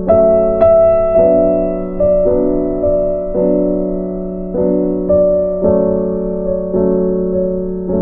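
Background music: a slow, gentle piano piece, sustained chords with new notes struck about every half second to a second.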